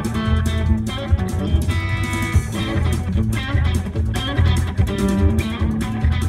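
Electric guitar playing fast chicken pickin' lines of snapped, plucked notes with sharp attacks, over a bass-heavy backing.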